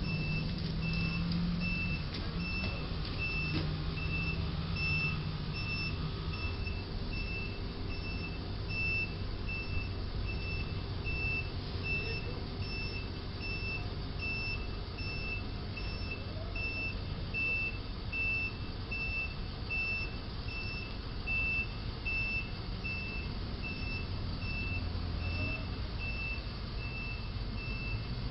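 Box truck's reversing alarm beeping at an even pace, one high tone repeated over and over, as the truck backs up, with the low rumble of its engine underneath.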